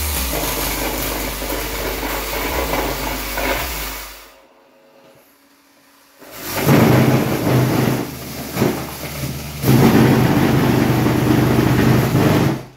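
Big Mac Audio subwoofer driven hard by a 500-watt car amplifier, playing bass-heavy music loudly with a rough, noisy edge. It drops out for about two seconds in the middle, then comes back with a heavier bass beat and cuts off sharply at the end.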